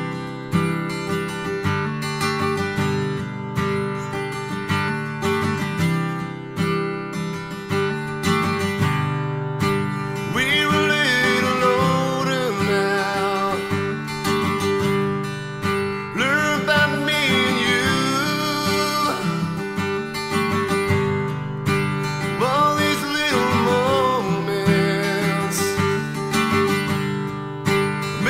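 A song: acoustic guitar strummed steadily, with a man singing phrases over it from about ten seconds in.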